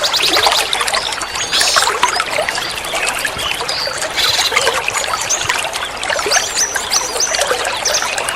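Many small birds chirping and twittering, with rapid trills and short whistled notes, over the steady sound of trickling water.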